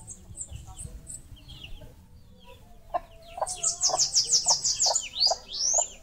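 Small songbirds calling: scattered high chirps, then a fast run of about a dozen high notes from about halfway, and a few down-slurred whistles near the end. Under them, in the second half, a hen clucks in a steady rhythm.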